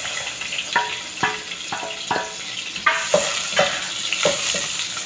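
Chopped onion, garlic and red bell pepper frying in hot oil in a pot, stirred with a wooden spoon: a steady sizzle, heavier about halfway through, with short scrapes of the spoon against the pot roughly every half second.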